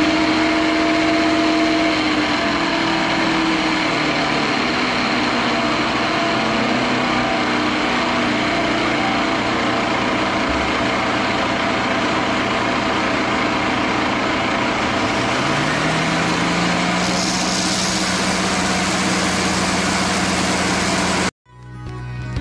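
DeWalt random orbital sander running against a white oak spindle that is turning on a Shopsmith lathe, sanding it to true up its taper. A motor hum drops in pitch over the first few seconds as the machine is slowed. The noise cuts off suddenly about a second before the end.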